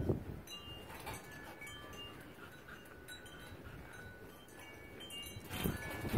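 Wind chimes tinkling faintly, with scattered short high notes at different pitches. Just before the end, the play noises of two chow chows wrestling get louder.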